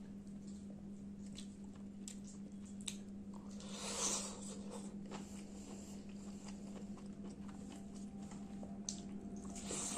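Biting into and chewing a curried chicken drumstick, loudest at the bite about four seconds in, with a few small clicks and a steady low hum underneath.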